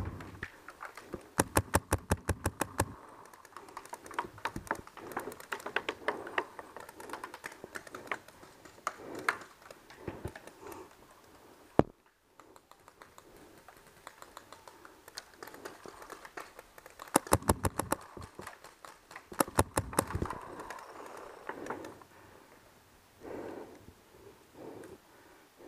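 Paintball markers firing: two loud strings of rapid shots, about nine a second, a second or so in and again a little past the middle, with scattered single and short runs of pops between.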